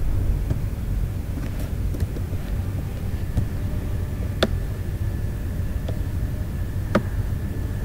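Sharp clicks of a computer mouse, one about halfway through and a louder one near the end, over a steady low background rumble. A faint steady high whine sets in a few seconds in.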